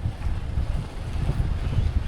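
Low, fluttering rumble of a moving Kia Sportage: road noise mixed with wind buffeting the microphone.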